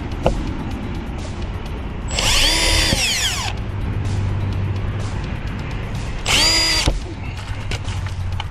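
Power drill driving self-tapping screws: two bursts of the motor spinning up and winding down, the first over a second long and the second shorter, about four seconds later. A sharp click is heard just after the start.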